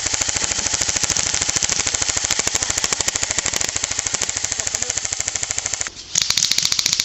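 Airsoft electric gun firing on full auto: one long burst of rapid, even shots lasting about six seconds, a brief pause, then a second burst near the end. This is suppressing fire laid onto an enemy trench.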